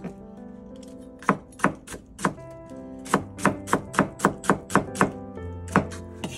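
Kitchen knife chopping napa cabbage on a cutting board, over background music. There are a few spaced cuts, then a quick run of about eight chops at roughly four a second, then two more.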